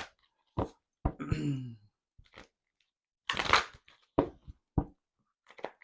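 Tarot cards being shuffled and handled, a few short bursts of card noise in the second half. A brief voice sound comes about a second in.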